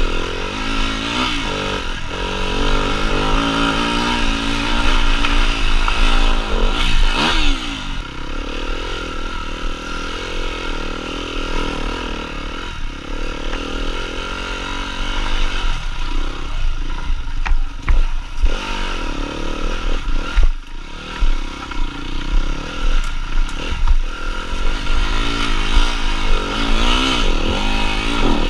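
Enduro dirt bike engine revving up and down again and again as the throttle is opened and closed, with scattered knocks and clatter.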